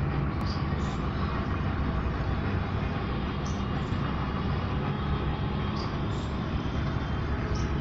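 Steady low rumbling outdoor background noise, with brief faint high chirps in pairs a few times.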